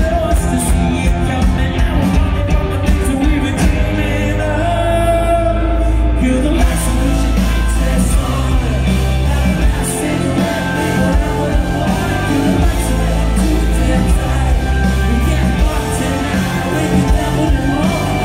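Rock band playing live in a hall: electric guitars, bass guitar and drums under a lead singer's vocal, loud. The sound grows fuller and brighter about six seconds in.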